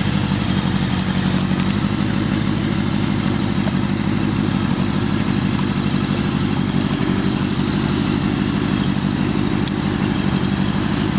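1985 Honda CB650SC Nighthawk's air-cooled inline-four idling steadily through a Supertrapp slip-on exhaust, with no revving.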